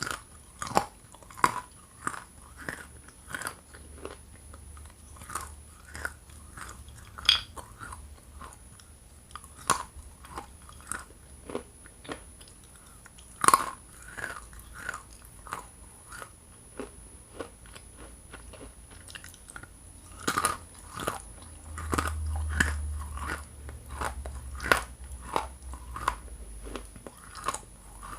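Hard lumps of edible Ural clay being bitten and chewed: sharp, irregular crunches about once a second between quieter chewing, with a low rumble twice.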